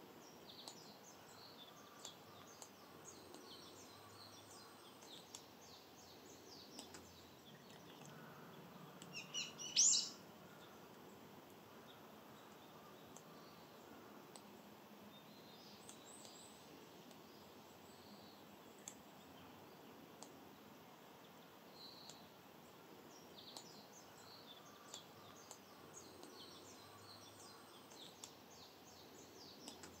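Wild songbirds chirping and calling in a forest: scattered short high notes over faint steady background hiss, with one louder, closer burst of call notes about ten seconds in.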